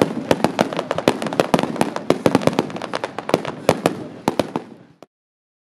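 Aerial fireworks shells bursting in rapid succession, several sharp bangs a second over a continuous rumble, thinning out and fading away about five seconds in.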